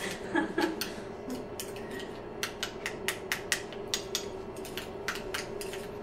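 Metal utensil clinking and scraping against a small steel bowl while mixing an avocado-and-honey paste, in quick irregular clicks.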